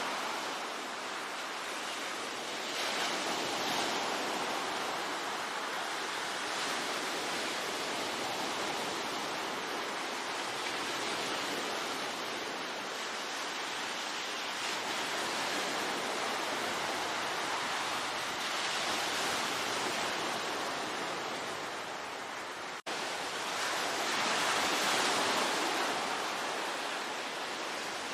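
Ocean waves washing on a shore: a steady surf hiss that swells and eases as waves come in. About 23 seconds in, the sound briefly cuts out for an instant.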